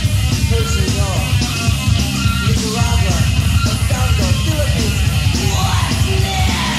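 Fast punk/crossover rock recording: distorted electric guitars, bass and drums playing a fast steady beat, with a rising slide near the end.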